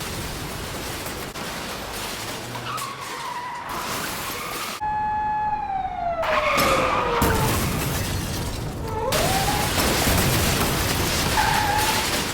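Dubbed car-chase sound effects: steady engine and road noise with several short tyre squeals. About five seconds in, a clear horn-like tone holds and then slides down in pitch.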